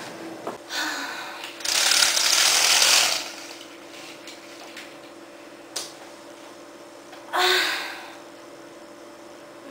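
Rustling and scraping noises of someone moving about, over a steady low hum. The loudest is a harsh noise lasting about a second and a half near the start, with a sharp click midway and a shorter burst near the end.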